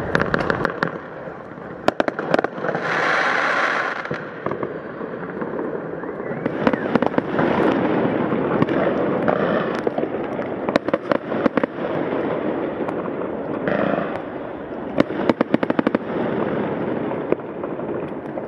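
Fireworks: a continuous stream of firecracker and rocket bangs over dense crackling, with short hissing rushes, one about three seconds in and another near fourteen seconds.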